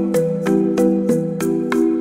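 Background music: a light melody of quick, evenly spaced struck notes, about three a second, over held chords.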